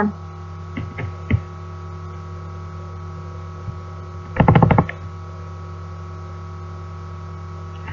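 Steady electrical mains hum with a stack of even overtones running under the recording, the sign of a poor microphone or audio setup. A few faint clicks come about a second in, and a short, loud buzzing burst comes about four and a half seconds in.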